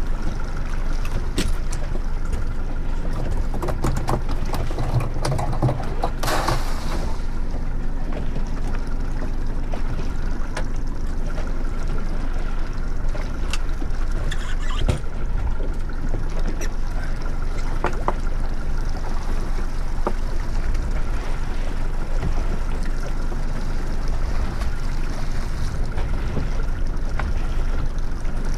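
Yamaha 115 outboard motor running steadily at trolling speed, with water and wind noise around the boat. A short burst of hiss comes about six seconds in.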